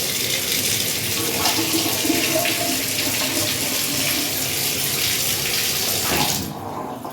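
Water spraying from a newly installed filtered shower head as it is first tested, a steady hiss that cuts off sharply about six and a half seconds in.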